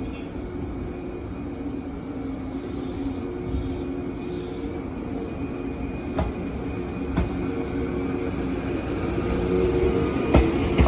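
Izukyu 2100 series resistor-controlled electric train running, heard from inside the car: a steady whine from the motors and gears over a rumble of wheels on rail. A few sharp clicks come from the wheels passing rail joints in the second half, and the sound grows slowly louder.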